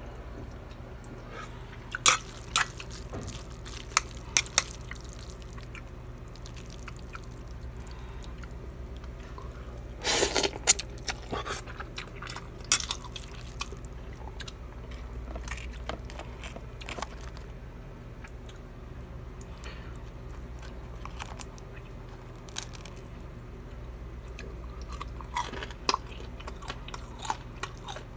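Close-up eating sounds: crunching and chewing of pan-fried dumplings and noodles. Scattered sharp clicks, with a louder cluster about ten seconds in, sit over a steady low hum.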